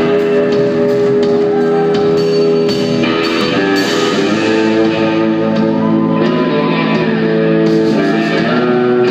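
Live band with electric guitars playing a slow song, the lead guitar holding long notes and bending one up in pitch about six seconds in.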